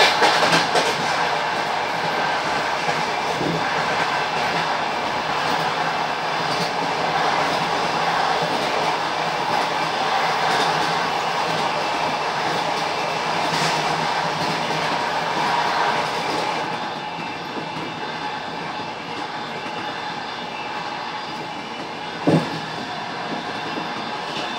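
Passenger train running on the track, heard from inside a carriage: steady rolling noise with the clatter of the wheels. The noise eases and grows duller about two-thirds of the way through, and there is one sharp knock near the end.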